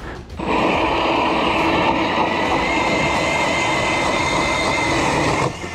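Battery-powered StrikeMaster electric ice auger drilling a hole in lake ice: the motor starts about half a second in, runs with a steady whine and stops abruptly just before the end.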